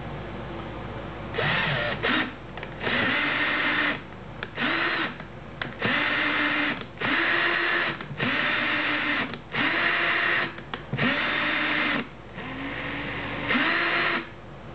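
A drill turning the lead screw of a CNC router Z-axis through its 1/4-inch input shaft, run in about ten short bursts of a second or so. Each burst's whine rises in pitch as the drill spins up and falls as it winds down.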